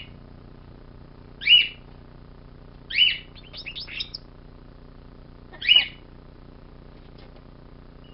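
Pet bird giving three loud, short, sharp calls a second or two apart, with a quick run of softer chattering notes after the second one.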